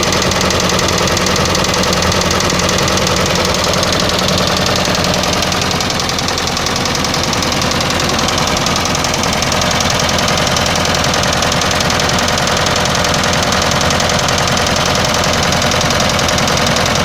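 Hyundai D4AL diesel engine running steadily with a fast, even, ringing knock. The cause of the knock is unknown to the owner.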